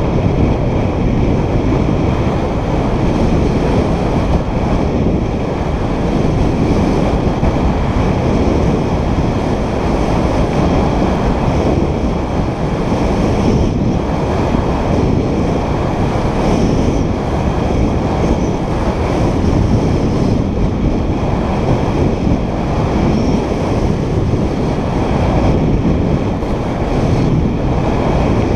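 Steady, loud rush of wind buffeting a helmet-mounted camera's microphone during a fast downhill ski run, mixed with the hiss of skis carving over packed snow.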